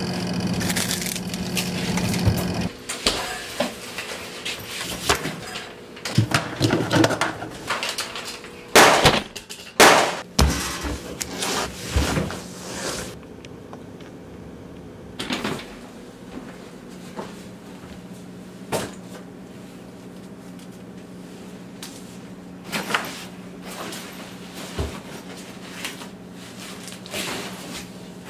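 A run of knocks, bangs and clatter of objects, with the two loudest bangs about nine and ten seconds in, then a few scattered knocks over a steady low hum.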